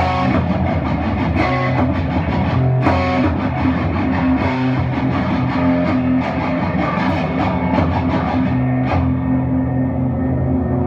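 Guitar-led rock music with drums: sustained guitar notes over a steady beat.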